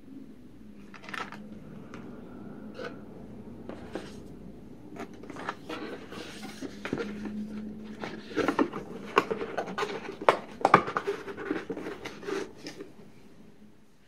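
Handling sounds from unboxing: a coiled cable and plastic wrap shifted about in a foam-lined cardboard box, with scattered taps, scrapes and rustles. From about eight seconds in, the cardboard lid is fitted back onto the box, and the taps and scrapes get busier and louder.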